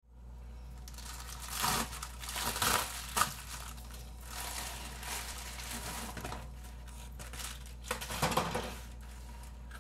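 Plastic bubble mailer crinkling and rustling in irregular bursts as it is handled and opened, with a sharp click about three seconds in.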